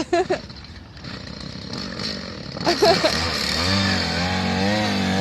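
Small boat motor running. It grows louder over the first three seconds, then runs steadily with its pitch wavering slightly.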